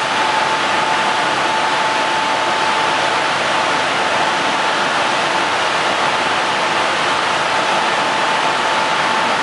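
Yadong SYS-901 automatic tunnel car wash running: a steady, loud rush of water spray and brush machinery, with a steady whine from the machinery that fades a few seconds in.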